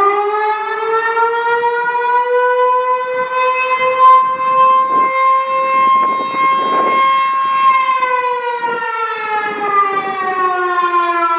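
Genasys LRAD DS-60XL loudspeaker arrays playing an electronic siren wail: the tone eases up to a steady pitch, holds for several seconds, then slowly glides down through the last few seconds.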